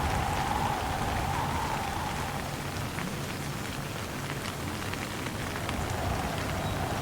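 Steady heavy rain with scattered drops, under a low rumbling windstorm; a whistling wind tone fades out a couple of seconds in and comes back near the end.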